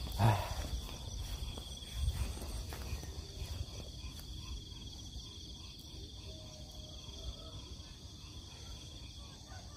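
Insects chirring steadily in a high, fast-pulsing trill. A couple of low thumps come in the first two seconds.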